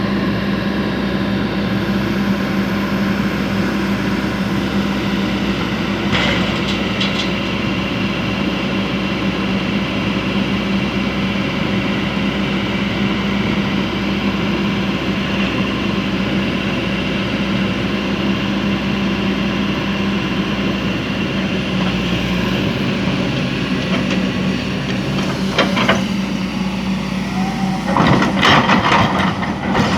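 Excavator's heavy diesel engine running steadily under load, with a few sharp knocks: one about six seconds in, another near the end, and a louder cluster just before the end.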